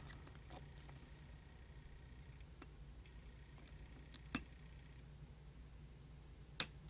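A few faint, sparse clicks of a steel hook pick working the pins inside a Commando padlock under top tension, the two clearest about four seconds in and another near the end, over a low steady hum.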